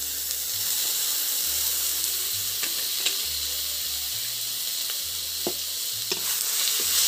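Chopped tomatoes sizzling in hot oil and masala paste in an iron kadhai, a steady frying hiss with a few light clicks. Near the end a metal spatula starts stirring in the pan.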